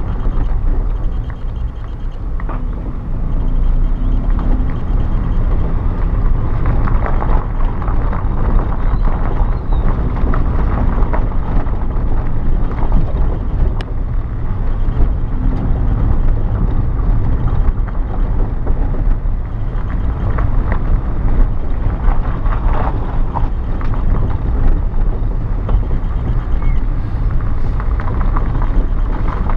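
Car driving along, its engine and road noise a steady low rumble, with wind buffeting the microphone.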